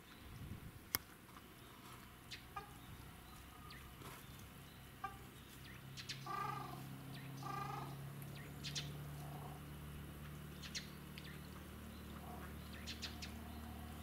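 Waterfowl giving two short calls about a second apart midway through, amid scattered high chirps of small birds. A low steady hum comes in about eight seconds in.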